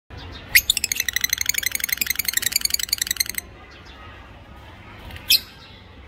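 Red-breasted parakeet giving a sharp call, then a fast, even chattering trill of about ten notes a second that lasts nearly three seconds and stops abruptly. One more short sharp call comes near the end.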